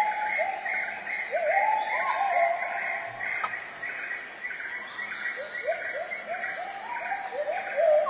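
Rainforest animal calls: short rising whoops repeated in runs of two to four, over a steady higher chirp that pulses about three times a second.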